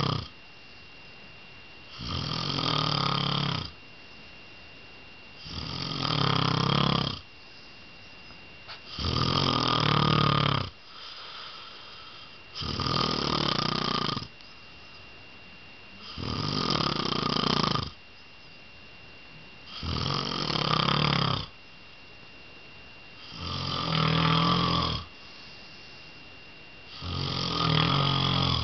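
A man snoring in a slow, regular rhythm, each snore about a second and a half long and coming about every three and a half seconds, with quiet gaps between.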